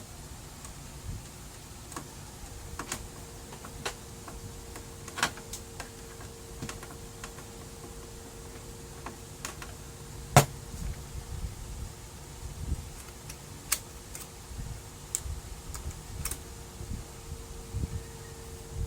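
Irregular clicks and taps of plastic and metal printer parts being handled during disassembly of a Brother laser printer, one sharper knock about ten seconds in, over a faint steady hum.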